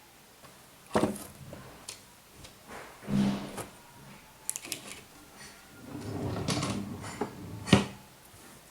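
Household objects being handled: a few sharp knocks and clatters, about a second in, around three seconds in and a loud one near the end, with small ticks and a stretch of rustling between them.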